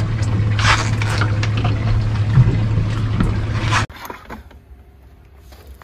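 A boat engine runs with a steady low hum, with water splashing and sloshing over it. About four seconds in it all stops abruptly, leaving only a faint, low background.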